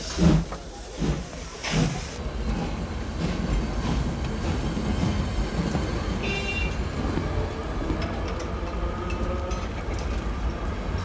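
Passenger train pulling out of a station, its carriages rolling with a steady low rumble. A short high whistle sounds about six seconds in. A few loud calls come in the first two seconds.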